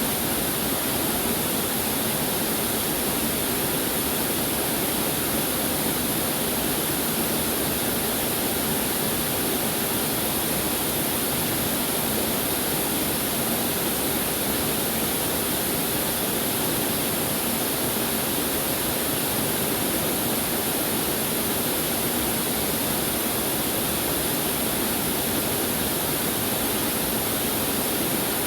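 Waterfall pouring steadily, a constant rush of falling water with no breaks or changes.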